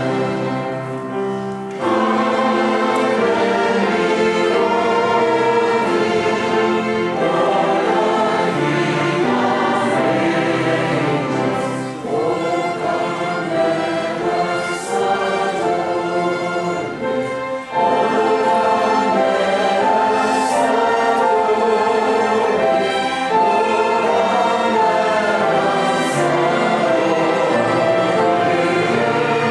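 A choir singing, with instrumental accompaniment. There are short breaks between phrases about 2, 12 and 18 seconds in.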